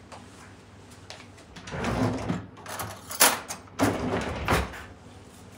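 Kitchen cupboards and drawers being opened and shut: three rough sliding noises about a second apart, with a sharp knock a little after three seconds in.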